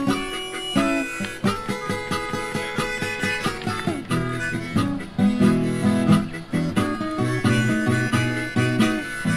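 Music: an acoustic guitar being played with a harmonica, held harmonica notes over plucked guitar notes.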